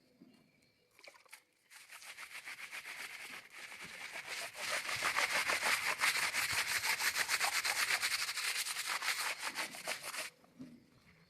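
Laundry being scrubbed by hand: fast, even back-and-forth rubbing strokes that start about two seconds in, grow louder, and stop abruptly near the end.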